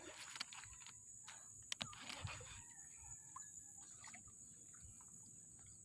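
Near silence: faint outdoor ambience with a steady high hiss and a few small clicks.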